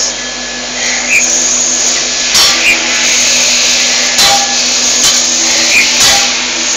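Proseiki double gang-tool CNC lathe running a machining cycle: the spindle and tooling run with a steady mechanical hum and noise, and a short sharp knock sounds about every two seconds as the tool slide moves.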